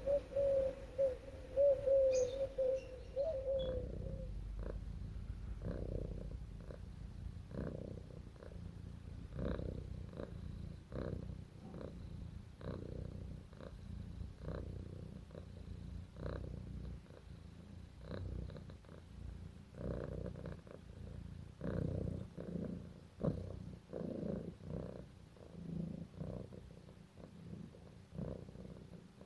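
Domestic cat purring close up, a low rumble that swells and fades in a steady rhythm about once a second. It opens with a few seconds of a higher wavering tone.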